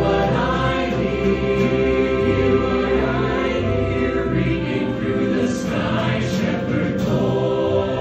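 Large choir singing a held, full-voiced passage with orchestral accompaniment, strings included, heard live through a phone microphone; the lowest bass drops away a little past halfway.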